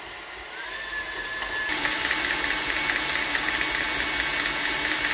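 KitchenAid Artisan stand mixer running with its wire whisk, beating softened butter in a stainless steel bowl to cream it until it turns lighter. The motor whine rises in pitch as it speeds up, then just under two seconds in it gets suddenly louder and settles into a steady whir.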